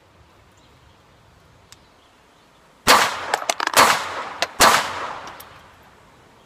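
Ruger Mark III 22/45 .22 LR pistol fired unsuppressed, with its Warlock 2 suppressor removed for comparison: three loud cracks about a second apart, each trailing off in an echo, with fainter cracks in between. The shots start about three seconds in.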